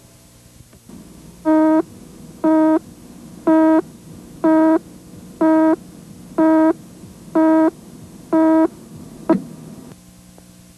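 Countdown beeps on a commercial's slate leader: eight short electronic beeps about once a second, then a single brief pop about a second after the last.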